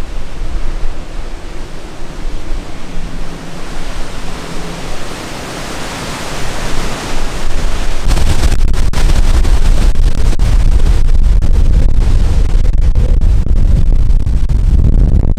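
Hurricane-force wind gusting through palms and trees with driving rain, a loud rushing noise that swells about six seconds in. From about eight seconds in, the wind buffets the microphone with a heavy, steady low rumble.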